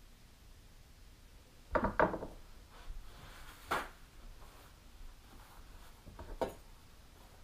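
Handling noises on a wooden table: a short clatter of knocks about two seconds in, a sharp knock near the middle and another near the end, with faint rubbing between, as a kitchen knife is set down by the sharpening stone.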